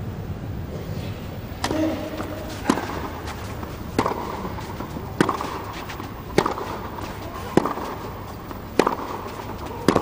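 Tennis rally on a clay court: tennis balls struck crisply by rackets in turn, one hit about every second and a quarter, starting a couple of seconds in.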